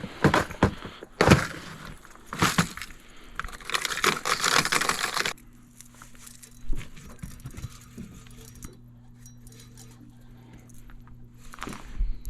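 Metallic clicking and jingling of fishing tackle being handled in a boat, with a rush of noise for a couple of seconds before it stops about five seconds in. Then a steady low hum with a few scattered clicks, and another burst of clicking near the end.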